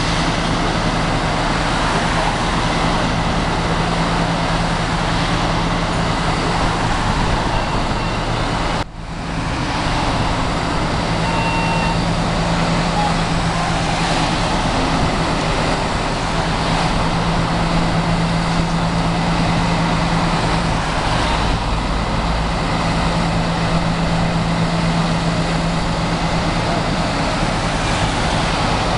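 Steady road traffic noise, with vehicles passing close by, over a constant low engine drone. The sound drops out briefly about nine seconds in.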